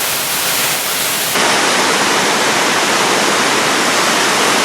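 Waterfall heard from close underneath: a loud, steady rush of falling water that grows louder and brighter about a second and a half in.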